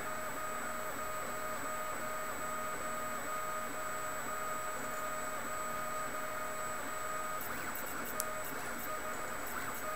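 MendelMax 1.5 3D printer running, its stepper motors whining at steady pitches that break off and resume as the print head changes moves. There are a few light ticks and one sharp click about eight seconds in.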